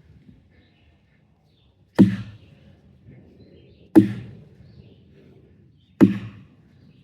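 Axe chopping wood: three heavy strikes about two seconds apart, each a sharp thunk that dies away quickly.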